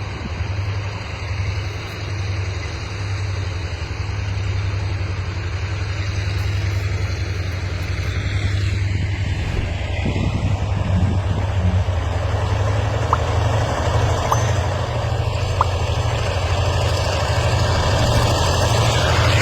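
Two EMD G22 diesel-electric locomotives, their V12 two-stroke diesel engines working hard under load as they haul a heavy train up a steep grade. The deep, steady engine sound grows gradually louder.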